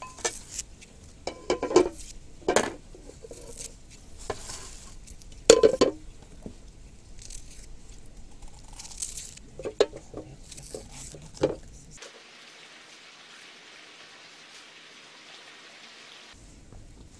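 Small knives peeling red onions by hand: scattered crisp clicks and crackles of dry onion skin, with a few louder knocks. About twelve seconds in these give way to a few seconds of steady soft hiss.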